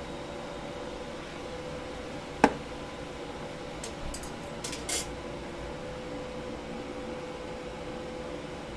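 Steady mechanical hum with a sharp metallic clink about two and a half seconds in, followed by a few lighter clicks a second or two later.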